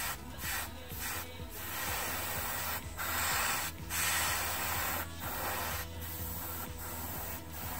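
Airbrush spraying black paint in short hissing bursts that stop for a moment each time the trigger is let off.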